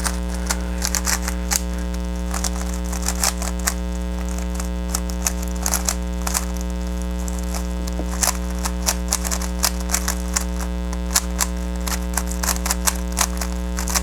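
A Rubik's Cube being turned quickly in a speed-solve: irregular clicking and clacking of the plastic layers, many turns in quick runs. A steady electrical hum sits under it.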